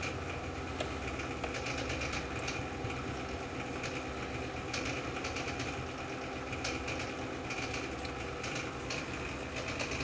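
A steady low hum with a faint high whine runs throughout, overlaid by light scattered clicks and rubbing as the tape deck's flywheel is turned by hand and its rim wiped clean.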